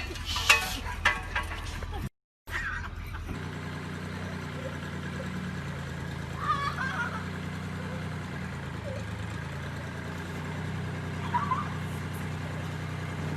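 A few sharp clattering knocks, then after a brief cut a steady low engine hum, like a vehicle idling, with two short high calls over it.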